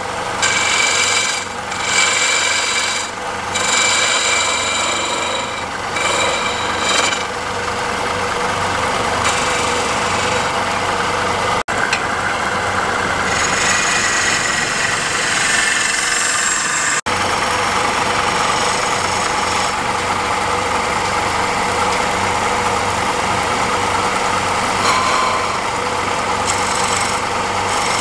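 Wood lathe's motor running steadily while a hand-held turning chisel cuts the spinning wooden workpiece, a scraping noise with a ringing high squeal from the tool on the wood that comes and goes in short spells, most in the first several seconds.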